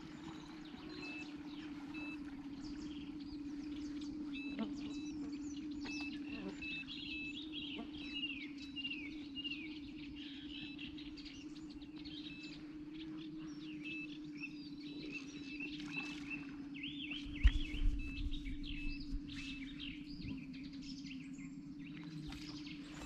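Small birds chirping and singing, many short whistled notes, over a steady low hum; a brief low thump about two-thirds of the way through.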